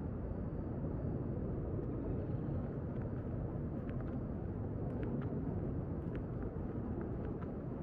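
Steady low rumble of outdoor urban ambience, like distant traffic, with faint short high ticks scattered through the second half.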